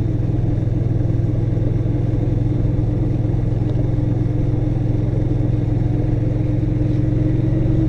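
Motorcycle engine running steadily at an even cruising speed, heard from the rider's helmet camera, with a faint higher steady whine joining about three seconds in.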